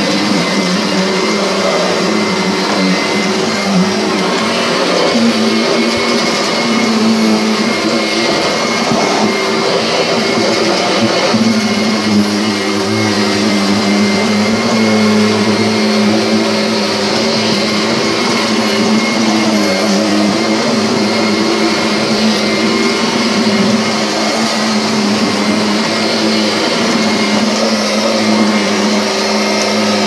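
Upright vacuum cleaner running steadily as it is pushed over carpet: a constant motor hum with a thin high whine above it. The hum's tone shifts slightly about twelve seconds in.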